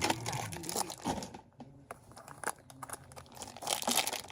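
Plastic blind-bag packaging crinkling and tearing as it is handled and opened, with a quieter pause about a second and a half in.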